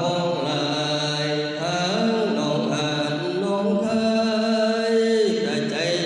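A man's voice intoning an Isan thet lae sermon in a long melodic chant, sliding between pitches and holding a long note about four seconds in.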